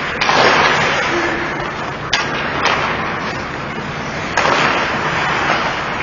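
Ice hockey play: skates scraping on the ice with about four sharp clacks of sticks, puck and boards, echoing in the arena.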